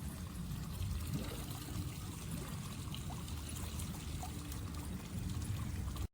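Water pouring and trickling in a swimming pool, over a steady low rumble.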